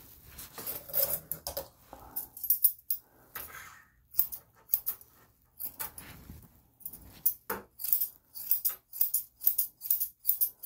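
Grooming scissors snipping through a dog's long hair in short, crisp metallic snips. The snips are scattered at first and come two or three a second in the second half.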